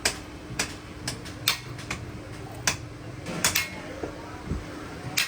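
Irregular light metallic clicks and taps, about ten of them, from metal shock absorber parts being handled and worked on, over a steady low hum.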